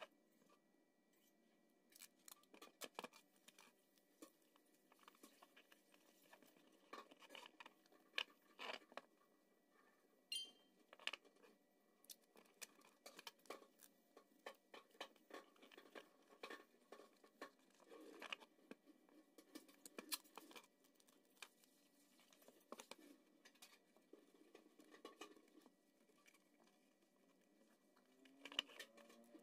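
Faint, irregular taps, scrapes and rustles of a cardboard box being handled and turned over on a work surface.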